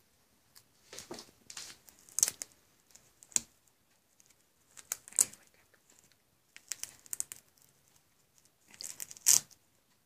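Hook-and-loop (Velcro) fasteners on a felt quiet book being ripped apart and pressed together as small felt pieces are pulled off and stuck back on, heard as a series of short, irregular rips.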